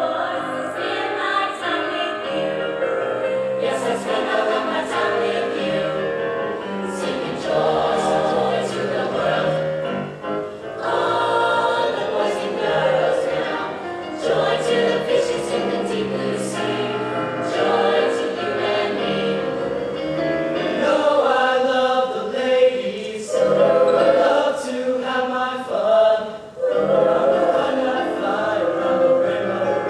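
Mixed-voice swing choir singing in harmony, with brief pauses in the phrasing about ten seconds in and again near the end.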